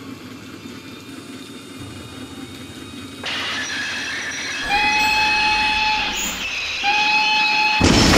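Steam locomotive running with its train and sounding its whistle twice, each blast held steady for about a second or more. A sudden loud blast of noise cuts in near the end.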